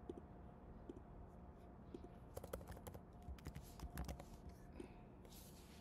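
Computer keyboard keystrokes: a few scattered clicks, then a quick run of typing in the middle as a word is entered.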